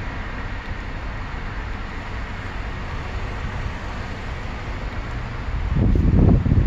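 Steady cabin hum of a 2020 Ford Escape idling in Park at about 1,000 rpm. Near the end a louder low rumble rises over it.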